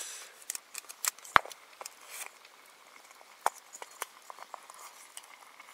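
Scattered light clicks and taps of utensils on camp cookware as food is worked in the pan, with one sharper knock about a second and a half in.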